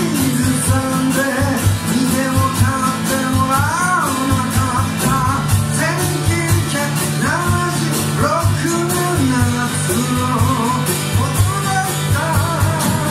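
Live band song: a man singing to a strummed acoustic guitar, with a drum kit keeping a steady beat.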